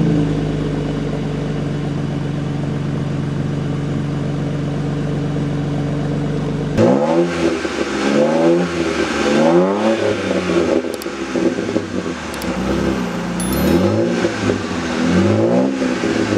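BMW N52 3.0-litre inline-six breathing through a resonator- and muffler-deleted exhaust. It idles steadily just after start-up for about seven seconds, then gives about six quick revs, each rising and falling back to idle.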